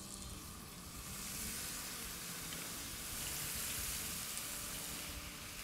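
Marinated chicken pieces sizzling in hot oil in a frying pan as they are laid in with tongs: a steady, fairly faint sizzle that builds over the first second.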